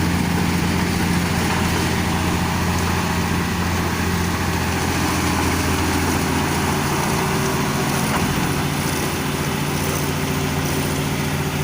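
Engine of a rice-farming machine running steadily, its hum settling slightly lower in pitch about halfway through.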